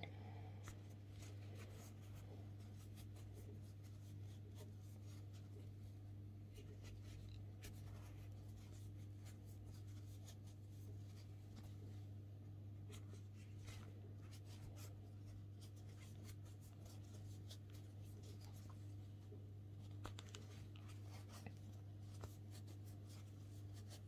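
Faint scratching and rustling of a metal crochet hook working thick textile yarn, with small ticks now and then, over a steady low hum.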